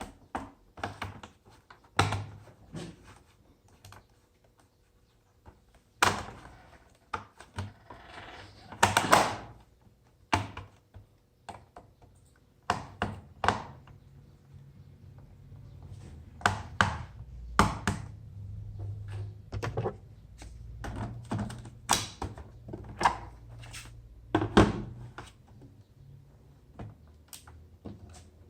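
Irregular clicks, taps and knocks of hands working on a laptop, the sound of plastic case parts and keys being handled, with a faint low hum underneath from about halfway through.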